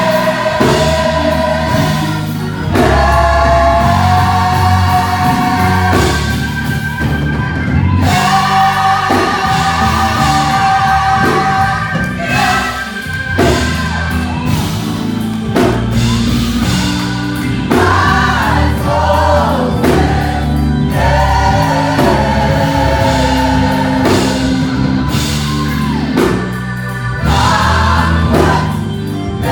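Gospel choir singing with band accompaniment, long held vocal notes over a steady bass line.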